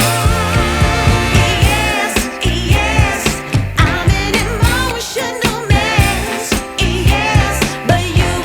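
Background pop song: a singer with vibrato over a steady beat.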